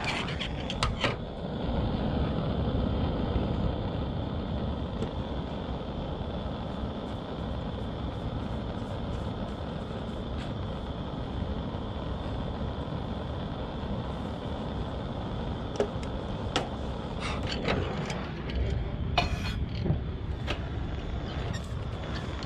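Steady rumbling background noise with scattered light clicks and taps, a cluster near the start and another between about 16 and 20 seconds in.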